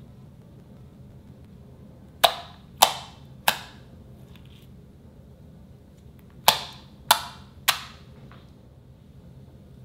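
Fingertips poking into thick white slime, making six sharp pops in two sets of three, each set about half a second apart.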